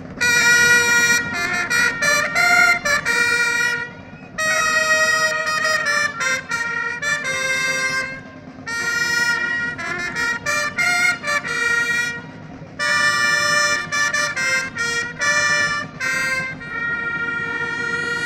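Band of long fanfare trumpets (clarions) playing a fanfare: loud held, chord-like notes in phrases of about four seconds, with short breaks between them.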